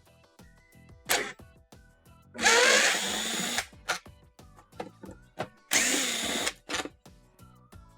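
Power driver fitted with a T10 Torx bit spinning screws out of a dishwasher's plastic control panel: a short burst about a second in, then two longer runs of about a second each, the motor whine rising and falling in pitch.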